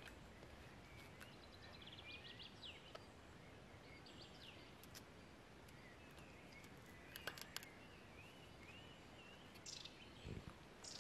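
Quiet woodland ambience with faint bird calls: scattered short chirps and small rising whistles, with a few soft clicks near the middle and end.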